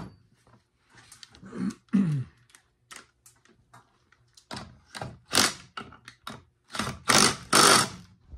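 Cordless impact driver hammering in short bursts as it turns the forcing screw of a crankcase splitter, pressing apart the two halves of a Stihl 064 chainsaw's crankcase. The longest and loudest bursts come near the end.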